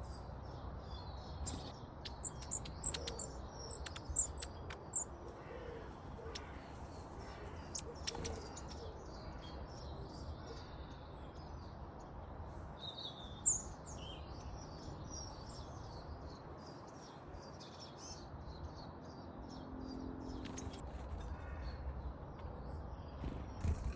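Small garden songbirds chirping and calling, many short high calls overlapping throughout, with a few sharp taps among them and a steady low background rumble.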